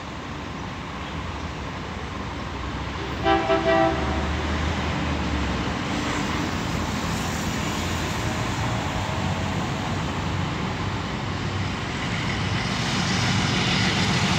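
SNCFT DI-class diesel locomotive sounding three short blasts on its two-tone horn about three seconds in, then its engine running steadily and growing louder toward the end as it approaches.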